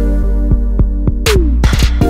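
Background electronic music with a steady beat and held synth notes; a falling sweep and a swoosh come in the second half.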